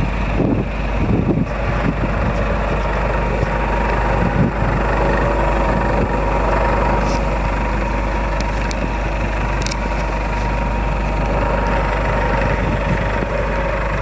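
Scania P340 gas-powered garbage truck's engine idling steadily, with a thin steady tone over the low running sound.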